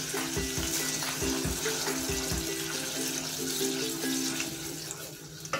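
Blended shallot, garlic and ginger paste sizzling in hot oil in a steel pot as a wooden spoon stirs it, under a light plucked-string background melody.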